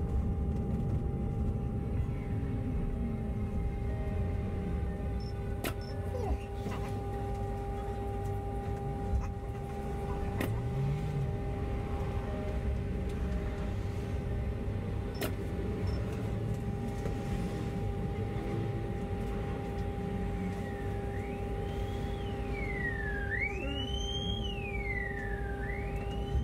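Bus running in traffic, heard from on board: a steady engine and road rumble with a constant hum. About three-quarters of the way through, a siren starts wailing, sweeping up and down about once every two seconds.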